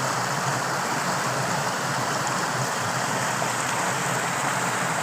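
Fast, torrential running water rushing steadily.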